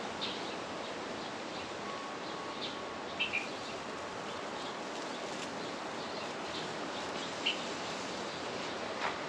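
Steady rushing wind noise outdoors with a few short bird chirps, and a single click near the end.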